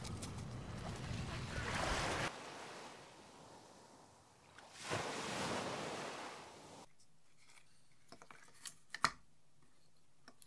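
Surf and wind noise that cuts off abruptly about two seconds in, then a wave washing in on the shore around the middle. Near the end, pearl oyster shells knock and click against a hard tabletop, one sharp knock the loudest.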